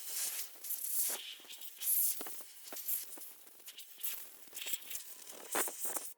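Irregular scrubbing and rubbing strokes on hard plastic, as faded motorcycle plastic parts are cleaned by hand.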